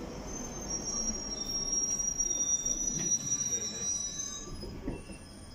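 London Underground Northern line 1995-stock train with a high, steady wheel squeal over the low rumble of the train running through the station. The squeal fades out about four and a half seconds in.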